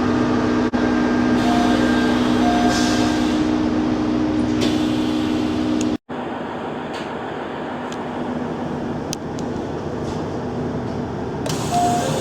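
JR Central KiHa 25 diesel railcar standing with its engine idling as a steady hum, while short door-chime tones sound and the passenger doors slide. About six seconds in the sound cuts to another KiHa 25 set, quieter, with a few clicks and the door chime sounding again near the end.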